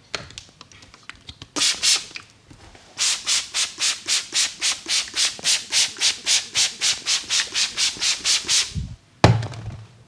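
Hands vigorously rubbing a client's hair and scalp in quick, even strokes, about four a second, with a short burst of rubbing first. A single sharp thud comes near the end.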